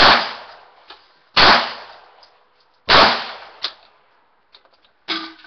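Three gunshots about a second and a half apart, each with a decaying echo. A quieter sharp crack follows about five seconds in.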